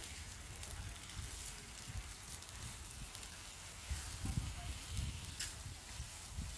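Octopus sizzling on a hot foil-lined barbecue tray as metal tongs turn it, with a few light clicks from the tongs and an uneven low rumble underneath.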